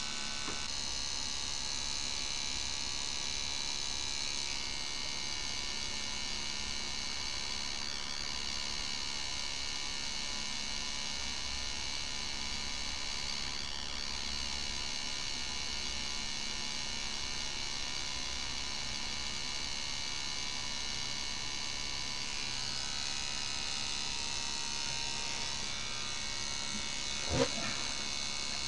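Steady electrical hum from powered bench electronics, with several high, steady whining tones over it. A short, loud sweep sounds near the end.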